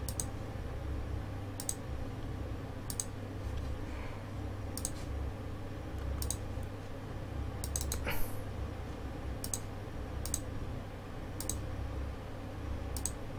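Computer mouse clicking at irregular intervals, about ten sharp clicks, as edges are picked one at a time. A steady low hum runs underneath, and a brief squeak comes about eight seconds in.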